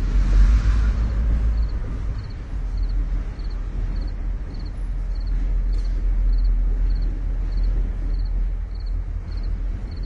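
Train rumbling past, a steady low rumble with a faint high ticking repeating about twice a second.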